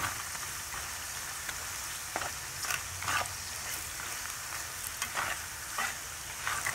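Metal spatula stirring ground spices and fried onions in hot oil in a pan: a steady sizzle with short scrapes of the spatula against the pan every second or so.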